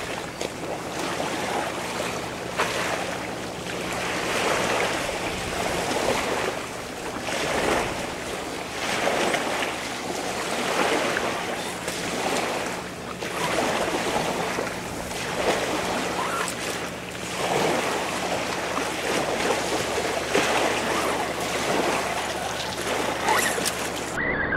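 Small waves washing onto a stony shore, the wash swelling and falling back every second or two, with wind on the microphone and a faint steady low hum underneath.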